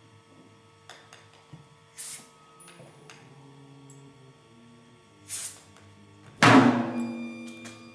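Experimental sound-art music: quiet sustained tones at several pitches, with scattered sharp clicks and three hissing noise bursts. The last burst, about six and a half seconds in, is the loudest and dies away over about a second.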